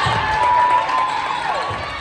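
Spectators cheering and shouting, many voices rising together and peaking about half a second in, then easing off.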